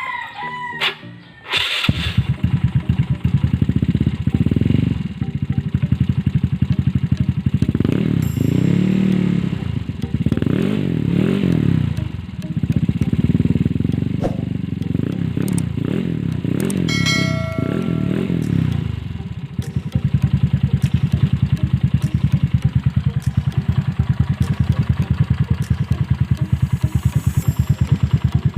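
Yamaha Mio Sporty scooter's single-cylinder engine through an MTRT Evo2 Reno aftermarket exhaust pipe: it comes in abruptly about two seconds in and idles, is blipped up and down several times on the throttle, then settles back to a steady, pulsing idle.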